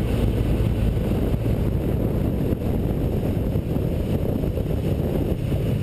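Wind rushing over the microphone of a camera on a Kawasaki Versys motorcycle riding at road speed. The engine and road noise sit underneath as a steady low rumble.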